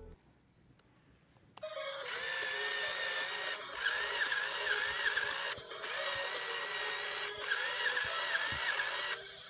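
Barbie Princess Adventure toy horse running its battery-powered dance mode: a motorised whirring with warbling tones over it. It starts about a second and a half in and runs in stretches of about two seconds with brief breaks between them, stopping just before the end.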